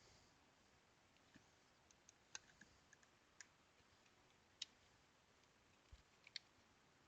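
Faint, scattered small clicks and taps of plastic handheld-console parts being handled and fitted together, with one soft low thump near the end.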